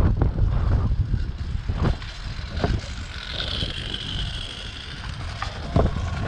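Wind buffeting the microphone as a steady low rumble, with a few sharp knocks, the loudest near the end. A faint high tone sounds from about three to four and a half seconds in.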